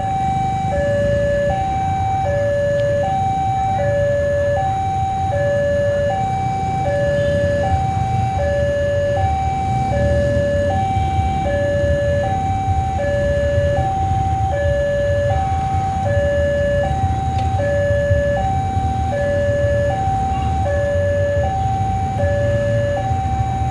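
Two-tone electronic warning alarm alternating evenly between a higher and a lower tone, about one pair every second and a half, over the low rumble of an approaching diesel locomotive.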